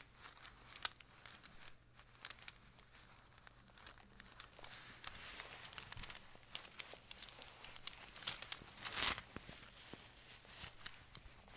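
Close-up crinkling and rustling of a small bag as rune pieces are handled, with many light clicks and ticks scattered throughout and a louder crinkle about nine seconds in.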